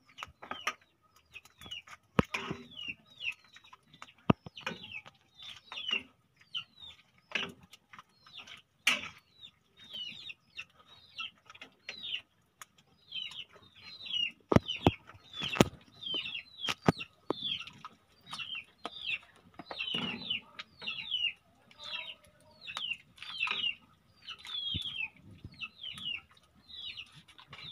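Chickens peeping in a long run of short falling chirps, roughly two a second, with sharp clinks of a metal ladle against a wok scattered among them as soup is ladled out.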